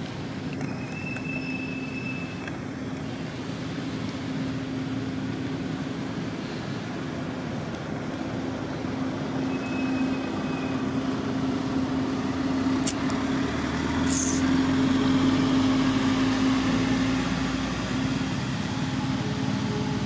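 Steady drone of a motor vehicle's engine, growing louder with a low rumble about two-thirds of the way through. Two short high chirps sound, one near the start and one about halfway.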